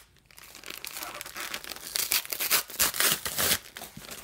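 Corrugated cardboard box being torn open by hand, with crinkling of its plastic wrapping: a run of rough tearing rasps that grow louder about two seconds in.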